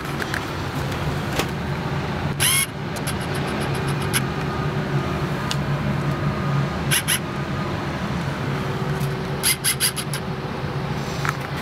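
Cummins ISL9 diesel engine of a 2011 New Flyer D40LFR city bus idling with a steady low hum, heard from inside the bus. Over it come a few clusters of short, sharp high clicks.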